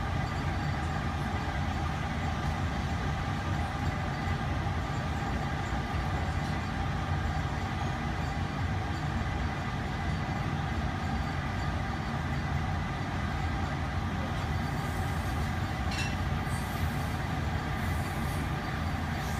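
Steady rumble of a laboratory fume hood's exhaust airflow, with several steady hum tones running through it. A faint click comes about 16 seconds in, and some faint high hissing follows near the end.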